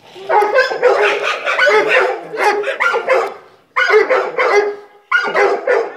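Several dogs barking, the barks crowding over one another for the first three seconds or so, then two shorter rounds of barking about four and five seconds in.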